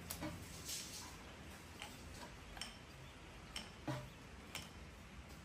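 Scattered light clicks and knocks, about seven at irregular intervals, from hands working the V-belts onto the lathe's pulleys and handling the metal pulley guard area.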